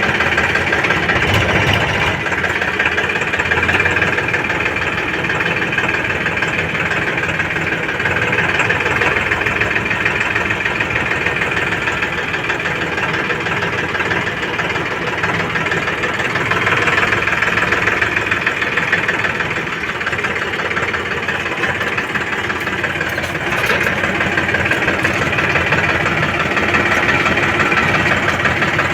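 JCB 3DX backhoe loader's diesel engine running continuously while working, its sound swelling and easing a few times with the load.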